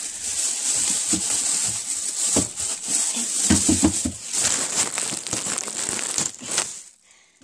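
Plastic packaging crinkling and rustling as it is handled, with scattered sharp crackles and a few dull knocks about three and a half seconds in; it stops just before the end.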